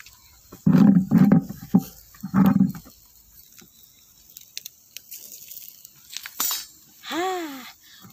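An animal's calls: short low calls about a second in and again a little later, then one drawn-out call near the end that rises and falls in pitch. Faint crackles from the wood fire lie between them.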